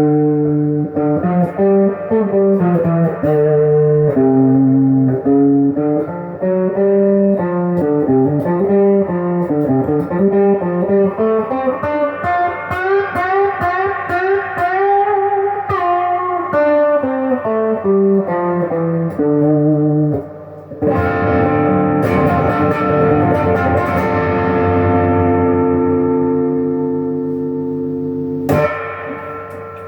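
Epiphone Les Paul Jr. electric guitar on its stock bridge humbucker, played through a Sweet Cream overdrive pedal stacked with a Crate amp's overdrive. It plays a run of distorted single-note lines with string bends, then a chord struck about two-thirds of the way in that rings out and fades, and a sharp strum near the end.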